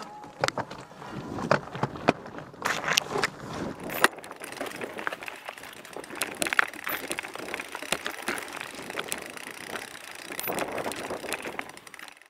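Mountain bike riding over a rocky singletrack, heard from a camera on the bike or rider: irregular rattling, clicks and knocks, with a few sharper knocks along the way.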